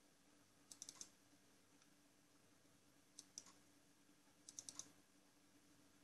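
Computer mouse buttons clicking in three short groups: a double-click about a second in, a single click a couple of seconds later, and another double-click near five seconds, as folders are selected and opened. A faint steady hum lies underneath.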